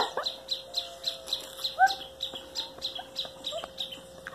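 A bite of ripe watermelon being chewed close to the microphone: quick, regular wet crunching that fades toward the end. A few short bird chirps sound around the middle.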